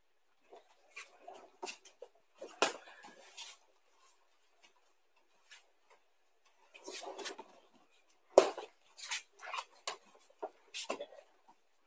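Bare feet stepping and pivoting on judo mats while a stuffed throwing dummy is swung in for uchi mata entries: irregular soft thuds, taps and rustling, with one louder knock about eight seconds in.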